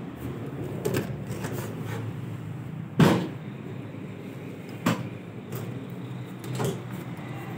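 A wooden door being pushed open: a few knocks and clunks, the loudest a single bang about three seconds in, over a steady low background rumble.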